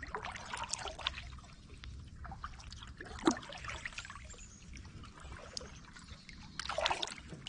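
Kayak paddle dipping into the water with water trickling off the blade, and three louder splashes about three seconds apart.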